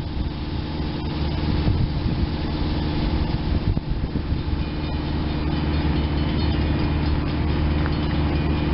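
SEPTA Silverliner IV electric commuter train approaching slowly: a steady low electrical hum that grows gradually louder, with faint high whines coming in about halfway through.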